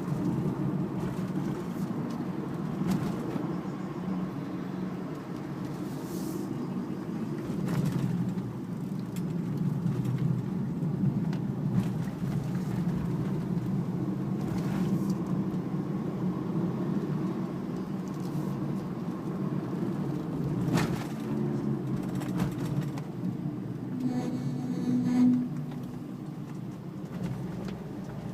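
Steady road and engine noise from inside a moving Daihatsu Terios 1.3. Near the end comes a brief pitched groan, the brake noise that occurs only under light braking in right turns and stops the moment the brake is released; the owner does not know its cause.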